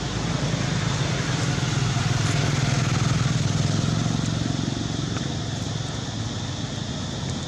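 A motor engine running steadily with a low hum, growing a little louder around the middle and easing off near the end.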